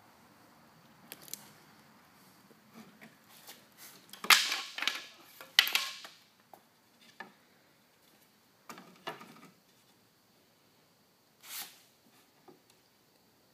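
Woodworking handling noise: wooden boards and a cordless drill-driver knocked and clattering as a wooden box is assembled around a cooler, in scattered clicks and knocks with a louder cluster of bursts near the middle and a short burst near the end.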